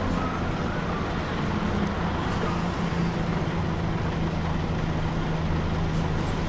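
Volvo B10BLE bus's diesel engine running steadily with its engine cooling fan on, a constant hum with a held low tone.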